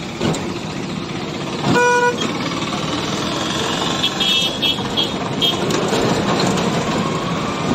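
Traffic and road noise heard from a moving rickshaw, with one vehicle horn honk about two seconds in, the loudest sound. A quick run of several short, high-pitched horn beeps follows a couple of seconds later.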